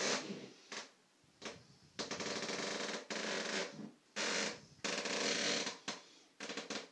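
Floorboards creaking and squeaking under footsteps, a run of about eight sudden creaks. The longest last around a second, and shorter ones come near the start and near the end.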